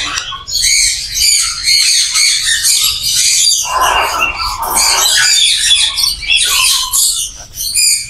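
A crowd of caged lovebirds and other parrots chirping and squawking all at once, a dense high-pitched chatter, with a harsher, lower squawk about four seconds in.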